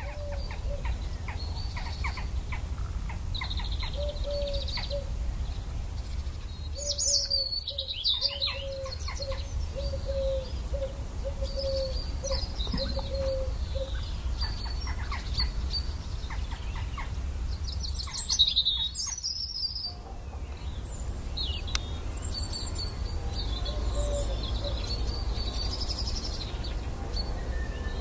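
Birdsong: several birds chirping and trilling over a steady low rumble, with a run of about ten low, evenly spaced notes from one bird in the first half.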